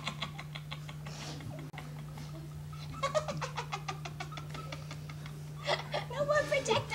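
A woman laughing in a rapid, high-pitched cackle, in runs of quick pulses, louder again near the end, over a steady low electrical hum.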